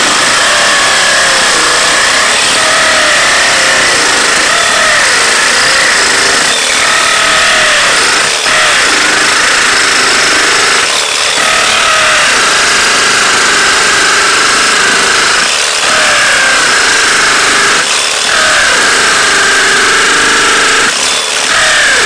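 DeWalt DCD996 cordless hammer drill running in hammer mode at its top speed, driving a concrete drill bit into a concrete block: a loud, continuous running and hammering that dips briefly about six times as the bit loads up. The hammer action is strong enough to shake the user's body.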